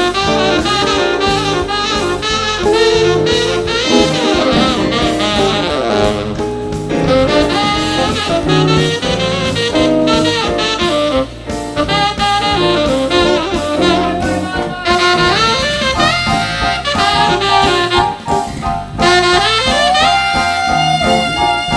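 Saxophone playing a jazzy melody live over band accompaniment with a steady beat; near the end it slides up into a long held note.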